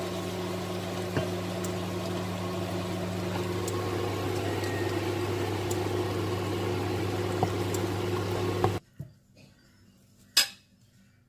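A kitchen appliance motor runs with a steady hum, then cuts off suddenly. Shortly after, there is a small click and then a sharp knock.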